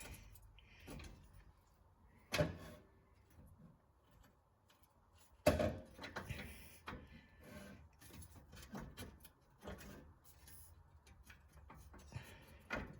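Scattered clicks and knocks of exhaust nuts, parts and hand tools being handled, with two sharper knocks, one about two seconds in and a louder one about five seconds in.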